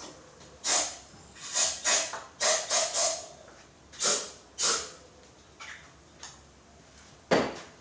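Aerosol can of starting fluid sprayed into a motorcycle's carburetor inlets in short bursts, about nine quick hissing sprays, most of them in the first five seconds and one more near the end.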